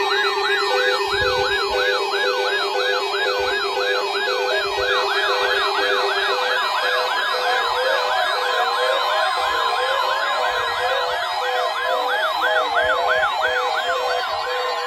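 Several electronic sirens yelping at once, each sweeping rapidly up and down in pitch, overlapping in a dense layer, with more joining about five seconds in. A steady low tone under them stops about six and a half seconds in, and a short repeating beep runs beneath.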